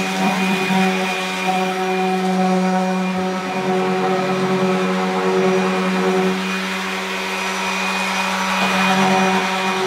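Electric sander running steadily with fine 1000-grit paper, a steady motor hum, for a light finishing sand that smooths the surface.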